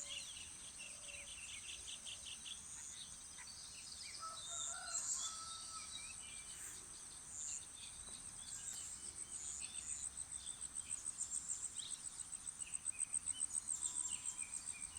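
Village dawn chorus: insects keep up a steady high buzz that turns into a fast, even pulsing about two-thirds of the way through, with scattered bird chirps and a distant rooster crowing briefly about five seconds in.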